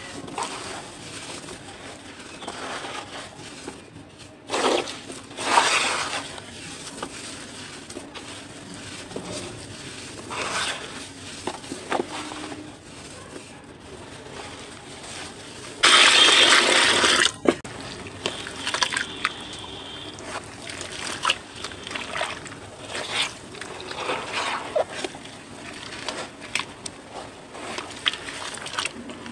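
Hands crumbling, scraping and squeezing wet cement chunks in a basin of water, with gritty crumbling, wet squelching and light sloshing. Halfway through there is a loud rushing noise lasting about a second and a half.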